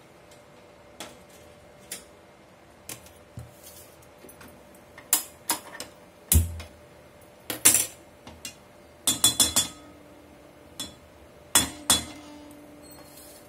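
Metal clinks and clanks of a steel slotted spatula and steel utensils knocking against an iron kadai and a steel plate on a gas stove: scattered light clicks at first, then louder strikes about five to twelve seconds in, with one heavier knock near the middle.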